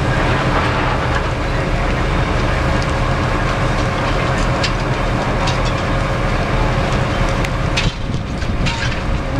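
Fire engine running its pump hard to feed a water cannon, a loud steady rumble with the rush of the water stream. A few sharp cracks from the burning building come through in the second half.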